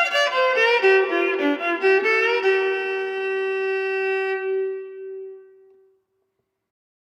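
Instrumental background music: a short melodic phrase of a few quick notes, ending on one long held note that fades out about six seconds in.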